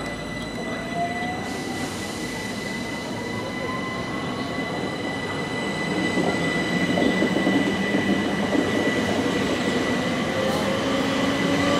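Southern electric multiple-unit train running past along the platform. It has a steady high electric whine, traction tones that slowly rise in pitch, and wheel-on-rail rumble that gets louder about halfway through.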